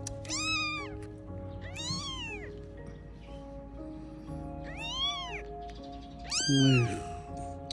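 Newborn kitten mewing four times, each call rising and falling in pitch, the last one loudest. Light background music plays under it.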